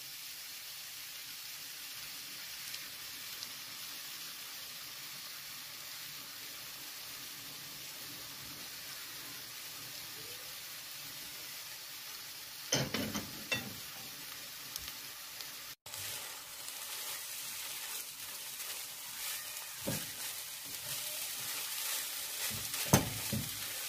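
Chopped carrots, onion and minced chicken liver frying in oil in a nonstick pan with a steady sizzle. There are a few knocks about halfway, then a spatula stirring and scraping through the mix over the last few seconds.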